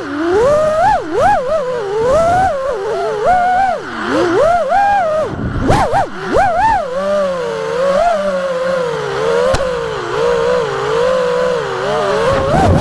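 FPV quadcopter's motors and propellers, a pitched drone that rises and falls constantly as the throttle is worked.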